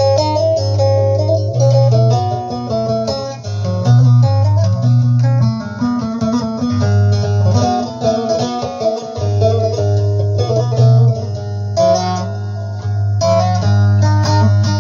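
Bağlama (saz) playing a plucked melodic instrumental passage over held bass notes that shift pitch every second or two.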